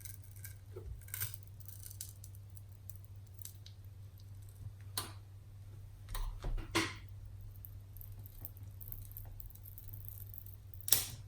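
A prying tool worked around the edge of a car touch-screen digitizer glued with adhesive, giving scattered faint clicks and scrapes, with a few sharper clicks about five, six to seven, and eleven seconds in, over a low steady hum.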